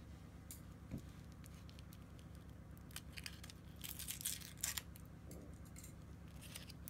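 Foil wrapper of a Kinder Surprise chocolate egg crinkling faintly as fingers pick at it and peel it back, in short scattered crackles, the loudest about four to five seconds in, over a faint steady low hum.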